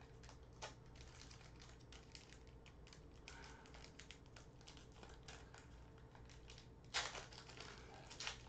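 Soft, irregular clicking of trading cards being handled. About seven seconds in, loud crinkling as a foil Panini basketball card pack is torn open.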